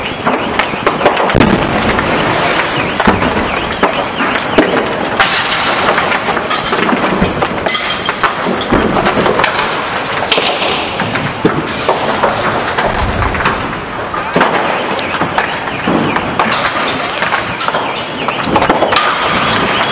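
Repeated sharp pops and bangs over a constant rushing noise from a large fire burning through a multi-storey car park full of cars, with people's voices mixed in.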